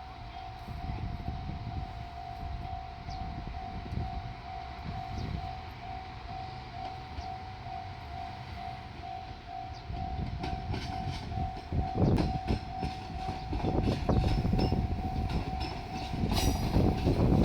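Japanese level-crossing warning bell ringing in a steady rapid pulse. From about ten seconds in, a JR Shikoku Series 185 diesel railcar rumbles up and reaches the crossing, its wheels clacking over rail joints, growing louder near the end.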